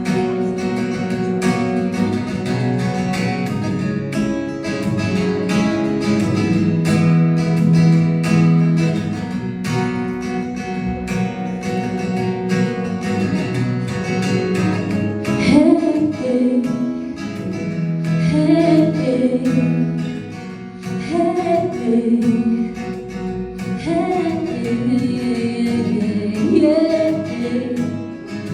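Song intro on strummed acoustic guitar; about halfway through, a singing voice joins over the guitar, its words not made out.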